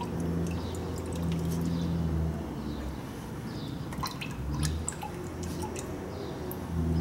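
Marvel Mystery Oil pouring and dripping from a bottle through the spark plug holes into the cylinders of a seized Mitsubishi 4G63 engine, with a few light clicks. The oil is filling the cylinders to soak the rusted pistons free.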